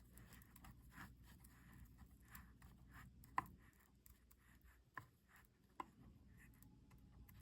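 Faint handling of light 3D-printed plastic parts being fitted together: soft scraping and rubbing, with three sharper clicks in the middle, roughly a second apart.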